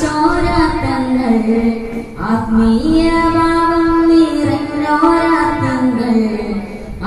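A boy singing solo into a microphone through a PA, one voice holding long notes and sliding between pitches, with a short breath about two seconds in.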